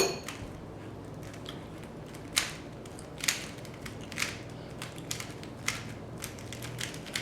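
Plastic Rubik's cube being twisted by hand, its layers clicking as they turn: a sharp click at the start and several more at irregular intervals, over a steady low hum.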